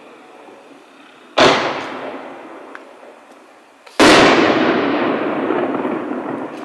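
Two loud booms from consumer artillery-shell fireworks, about two and a half seconds apart. The second is louder and trails off slowly.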